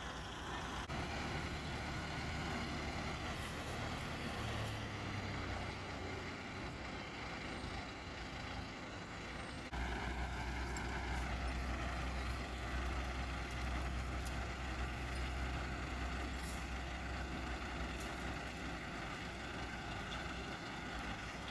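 Tractor engine running steadily. About ten seconds in, a deeper low hum sets in and holds.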